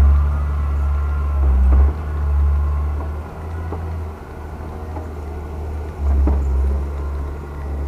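Diesel engine of a wheel loader working with a front-mounted snowblower: a low, steady rumble that drops about two seconds in and swells again near six seconds.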